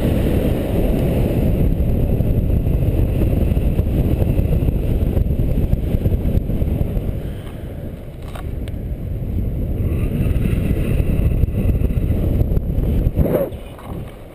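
Wind buffeting a camera microphone in flight under a paraglider: a loud, steady rumble that eases briefly about halfway through and drops off just before the end.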